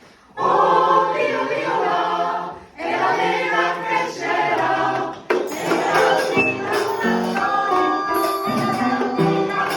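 A choir singing with instrumental backing in two short phrases, then the music goes on with bright, high percussion and held high notes.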